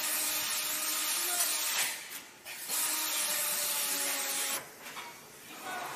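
Steady hissing noise in two stretches of about two seconds each, breaking off about two seconds in and again near the end, with faint voices beneath.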